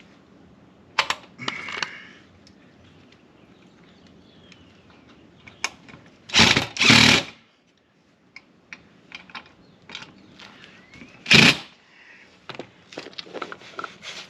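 Power drill running in short bursts, driving or backing out screws of a storm door closer: a few brief bursts early, two longer ones midway and another near the end, with scattered clicks and knocks of hardware being handled between them.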